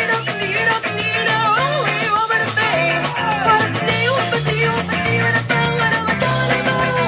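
Upbeat ska-flavoured rock and roll instrumental break: electric guitar with a bouncing bass line and steady drum beat.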